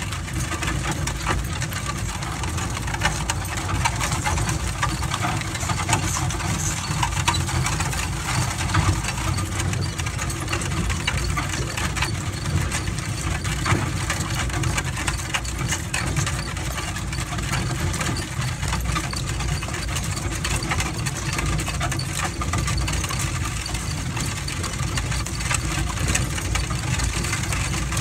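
Steady rumble and rattle of a mule-drawn cart rolling up a gravel road, with hooves and wheels crunching on the gravel and the trace chains and harness clinking.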